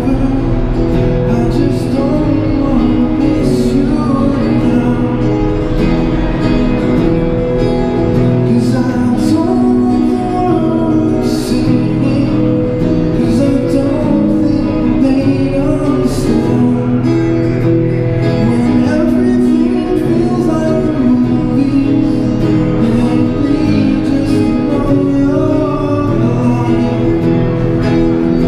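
A man singing a song with his own acoustic guitar strumming along, both amplified through a small Roland Cube Street EX busking amp.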